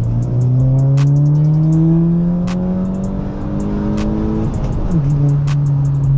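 Audi A4 2.0 TFSI turbocharged four-cylinder, with a catless downpipe and AWE Track exhaust, pulling hard in gear on its stock tune. The revs climb steadily for about four and a half seconds, then fall sharply at a gear change and hold lower. Background music with a sharp beat plays over it.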